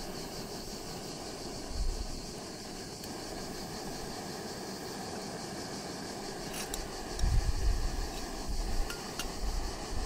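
A steady rushing hiss, with wind buffeting the microphone in low rumbling gusts briefly about two seconds in and again from about seven seconds in, and a few light clicks near the end.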